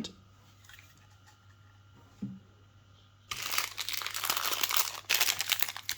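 Plastic packaging crinkling and rustling as clipper accessories are unwrapped by hand, starting about three seconds in after a small knock, with a brief pause near the end.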